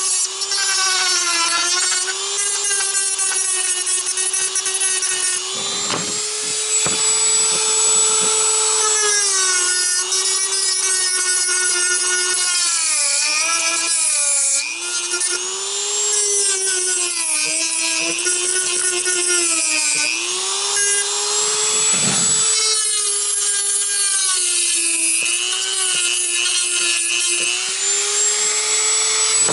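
Dremel rotary tool running at high speed and grinding away soft plastic. Its steady whine sags in pitch each time the bit bites into the material and climbs back as it eases off, over and over.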